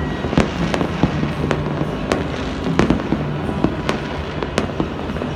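Fireworks and firecrackers going off: sharp bangs at irregular intervals, about two a second, over a continuous crackling din.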